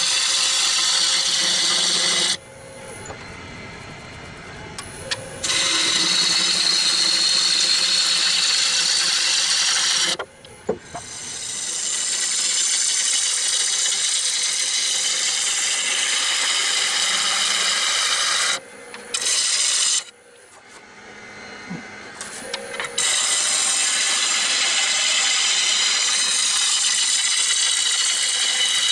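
Gouge cutting the underside of a walnut bowl spinning on a wood lathe: a loud, steady hiss of shavings peeling off. It comes in several passes, broken by three short pauses where the tool comes off the wood and only the lathe's quieter running is left.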